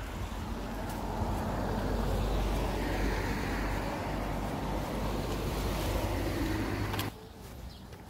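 Wind buffeting the microphone over a steady outdoor rush, heavy in the low end. It cuts off suddenly about seven seconds in, leaving a much quieter background.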